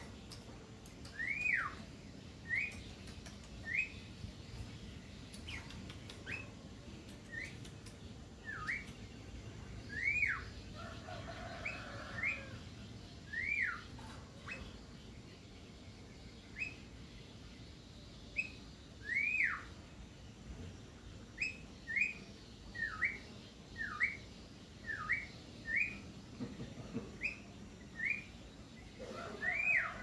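Caged Javan myna (jalak kerbau) singing: short clear whistles repeated about once a second, most of them a quick rise and fall in pitch. A brief rougher call breaks in about twelve seconds in.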